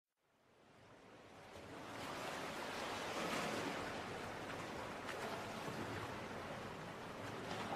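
A steady, water-like rushing noise fading in over the first two seconds and swelling a little in the middle.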